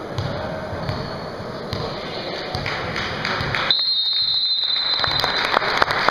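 Indoor basketball gym: a crowd murmuring and a basketball thumping on the court floor. A steady high-pitched tone starts about four seconds in and holds for about two seconds.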